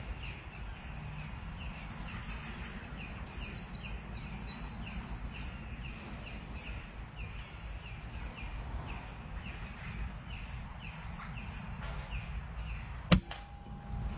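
Birds chirping steadily over outdoor background noise, then near the end a single sharp crack of a .22 Reximex Pretensis PCP air rifle firing, the loudest sound, followed by a short steady ringing tone.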